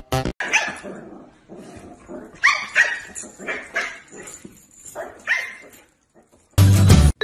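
A dog barking in short, separate barks, a few close together about two and a half seconds in and another near five seconds, followed by a loud half-second burst of sound near the end.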